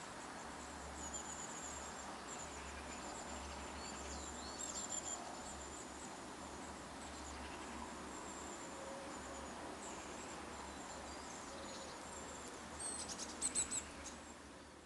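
Small garden songbirds calling: thin, high chirps and short trills come and go throughout over a steady background hiss, with a louder run of sharp calls near the end.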